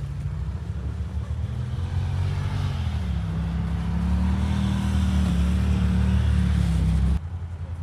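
An off-road vehicle's engine running close by, growing louder with a shift in pitch about three seconds in, then cutting off abruptly near the end.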